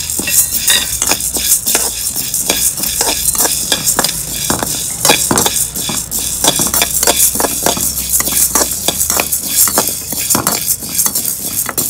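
Chana dal and urad dal dry-roasting in a kadai, stirred with a metal perforated skimmer. The skimmer scrapes the pan again and again and the lentils rattle, over a steady hiss. The dal is being roasted to golden.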